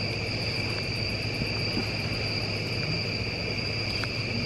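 Night insect chorus, a steady high-pitched trill that does not change, over a low steady hum.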